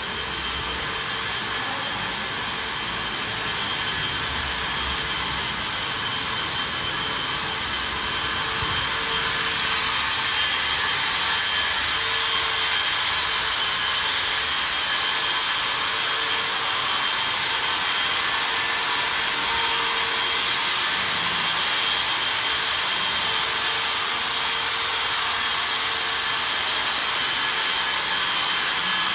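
A machine running steadily: a loud, even rushing noise with a high whine, getting a little louder about ten seconds in.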